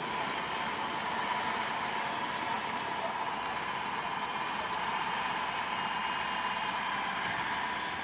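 Maxxi Bimo crawler combine harvester running steadily as it drives on its tracks: an even machine noise with a steady high whine.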